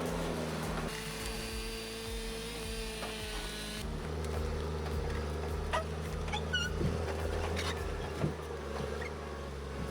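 Heavy machine's diesel engine running steadily, its tone changing abruptly twice. A few short high chirps or squeaks come in the middle.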